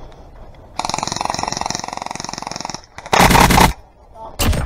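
Airsoft gun firing one sustained full-auto burst of about two seconds, starting about a second in. Two short, loud noisy bursts follow near the end.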